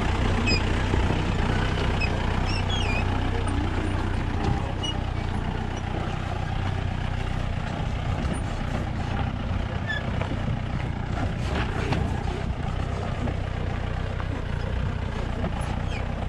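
Mahindra Bolero 4x4's engine running steadily at low revs as it crawls over a rocky dirt track.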